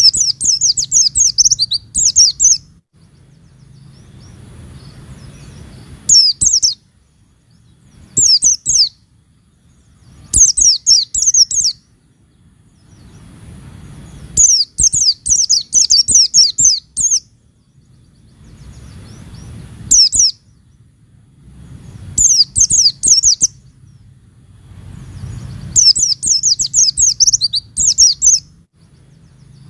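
Pleci (white-eye) singing in about eight fast, high twittering bursts of quick sliding notes, each lasting one to three seconds with short pauses between, in the rapid 'nembak' style.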